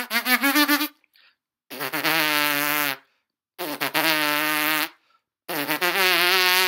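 Trumpeter's spit buzz with the lips: three held, raspy buzzed notes at about the same pitch, each a little over a second long with short gaps between them.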